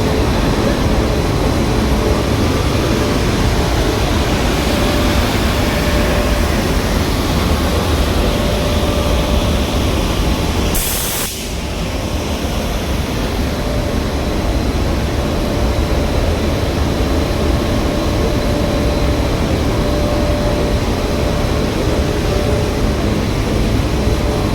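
Industrial film-processing machine, a window de-metalizing and coating line, running with a steady rumble and hum. About halfway through comes a short high hiss as the level dips briefly.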